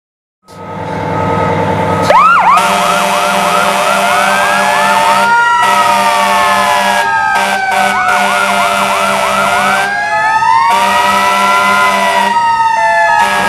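Sirens and air horns of a 1993 E-One Hurricane fire truck sounding together, starting loud about two seconds in: the Federal Signal Q2B mechanical siren winding up into a slow rising and falling wail, the Federal Signal PA300 electronic siren in two stretches of fast yelp, and steady air-horn blasts that break off a few times.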